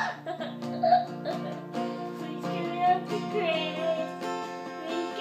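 Guitar chords being strummed, one strum about every half second, with each chord ringing on. A voice sings along quietly.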